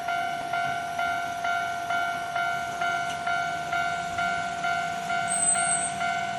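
Japanese level crossing alarm ringing: an electronic 'kan-kan' bell striking evenly about twice a second over a steady tone.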